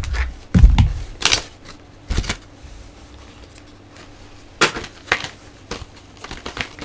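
Plastic action-figure packaging being handled: scattered crinkles and rustles, with a dull bump close to the microphone about half a second in and a run of small clicks near the end.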